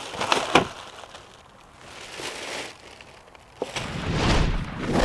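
Cardboard box and packaging being handled and rummaged through: a couple of sharp clicks, then crackling and rustling. A deep rumble builds near the end.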